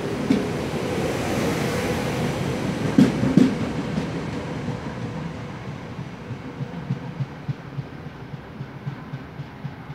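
SEPTA Silverliner IV electric commuter train running past, its wheels clattering over rail joints, with two heavy clunks about three seconds in as the last car goes by. The sound then fades as the train recedes, leaving a row of fainter, regular wheel clicks.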